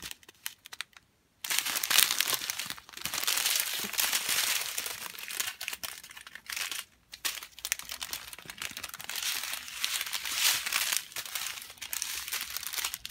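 Small clear plastic bags of resin drills crinkling and rustling as they are handled, starting about a second and a half in, with a short pause about halfway through.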